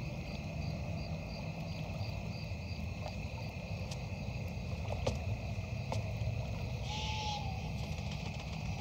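Outdoor nature ambience: a steady high insect trill over a low rumble, with a row of faint quick chirps in the first three seconds and a short falling whistle about seven seconds in.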